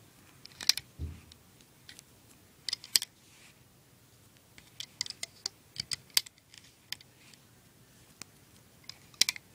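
Rubber bands snapping onto the pegs of a plastic rubber-band loom, with fingers knocking against the plastic, giving irregular sharp clicks and snaps. There is a dull thump about a second in.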